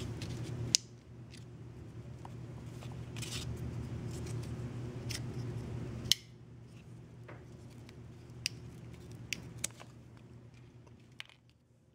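Nylon paracord being cut with the rope/belt-cutter hook of a Sanrenmu 7056 folding knife: a few sharp snip-like clicks with light handling of the knife and cord.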